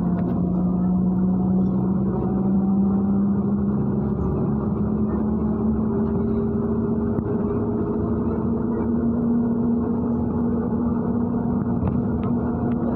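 MAZ-103 city bus on the move, heard from inside the passenger cabin: a steady engine and drivetrain hum over road noise, its pitch rising slowly as the bus gains speed.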